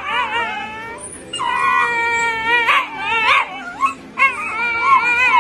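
A dog whining and howling in a string of high, wavering cries, the longest held steady for more than a second near the middle.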